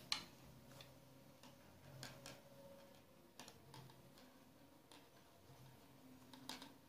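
Faint, irregular small clicks and handling noise as a safety pin carrying elastic is worked through a sewn fabric tube, with a sharper click just after the start and another near the end.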